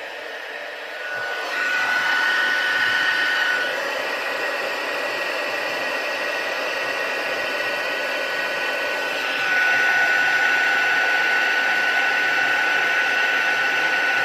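Craft heat gun (embossing heat tool) blowing steadily with a thin steady whine, melting clear embossing powder. It gets louder about a second and a half in and again around nine and a half seconds.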